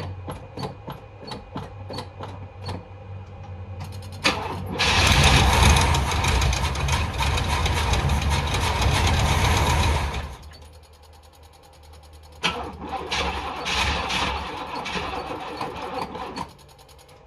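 Box Chevy's engine cranked on the starter twice without catching, a long crank of about five seconds and then a shorter one of about four, after a run of regular clicks at about three a second. The engine doesn't start, which the owner puts down to a near-empty fuel tank.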